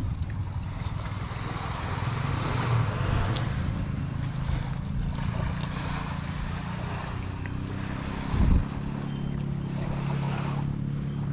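A steady low engine drone under a rushing outdoor noise, with a few light clicks and one short, loud low thump about eight seconds in.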